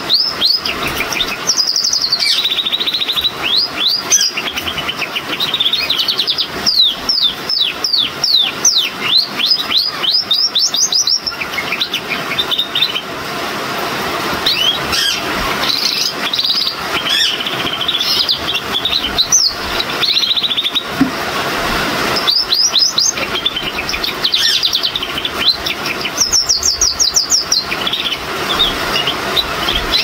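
Male Gloster canary singing a long, varied song: strings of quick repeated falling notes and fast rolling trills, in phrases separated by short pauses.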